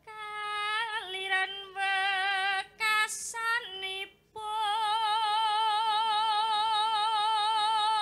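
A woman singing solo, without accompaniment, in a Javanese sinden style: short melismatic phrases with brief pauses, then a long held note with a wide vibrato through the second half.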